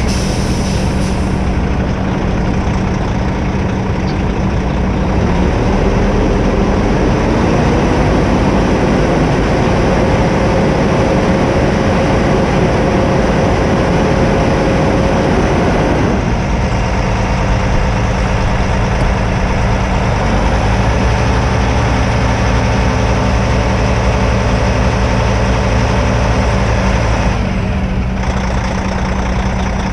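Heavy diesel dump truck engine running, its revs climbing about six seconds in and held high for several seconds, then dropping suddenly back to idle about halfway through. The raised revs drive the hydraulic hoist that tips the loaded dump box.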